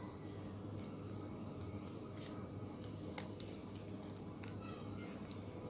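Faint scattered ticks and rustles of a glued leather strip being handled and folded by hand, over a steady low background hum.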